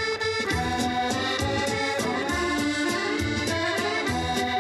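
Accordion music: a melody of held notes and chords that change every fraction of a second.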